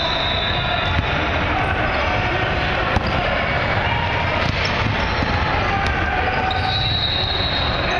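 A basketball bouncing on a hardwood gym floor during play, a few sharp thuds over a steady din of players' feet and voices echoing in the hall.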